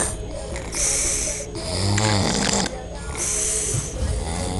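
A man snoring in his sleep: three snoring breaths, the middle one with a low buzzing tone, the others mostly hiss.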